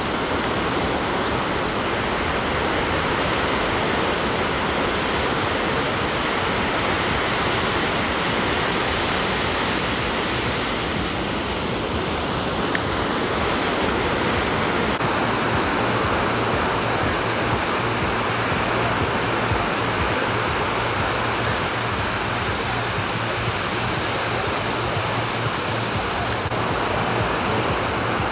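Ocean surf rushing onto a sand beach: a steady, even wash of breaking waves.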